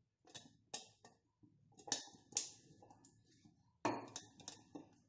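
Light clicks, knocks and scrapes of a silicone pastry brush against the inside of a stainless steel container as it is greased with oil, with a busier bit of handling clatter near the end.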